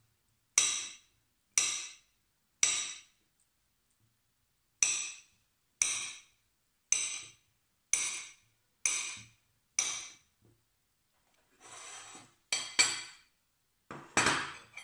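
Table knife slicing a ripe banana into rounds on a ceramic plate, the blade clinking sharply on the plate at each cut, about once a second. Near the end a brief scrape and a few louder clinks of crockery.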